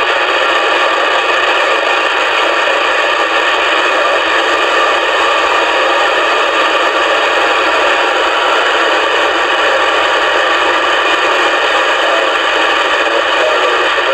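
Magnum 257 radio's speaker giving a steady FM static hiss on 27.781 MHz, with no station coming through.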